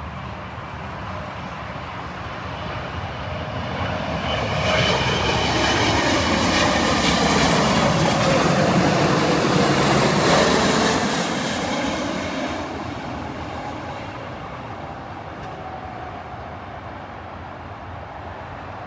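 Boeing 777-200ER's GE90 jet engines passing close as it comes in to land: the rush and whine grow louder, peak about halfway through with the pitch bending down as it goes by, then fade away.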